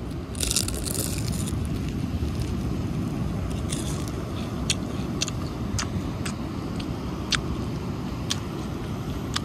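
Biting into a piece of crispy fried chả with one loud crunch, then chewing it with sharp crackles every half second or so. Under it runs a steady low rumble of wind on the microphone.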